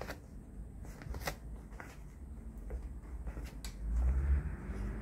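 A poodle nosing and pawing through a crumpled padded jacket on a wooden floor: fabric rustling with scattered light clicks. A low rumble swells up about four seconds in.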